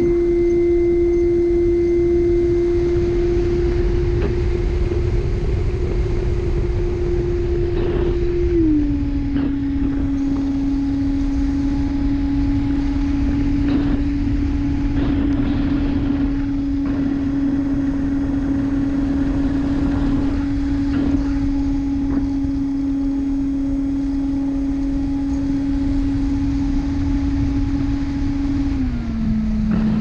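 64 mm electric ducted fan on an RC plane running at steady throttle, a constant whine that steps down in pitch twice, about nine seconds in and again near the end, as the throttle is eased back. Wind noise rushes underneath.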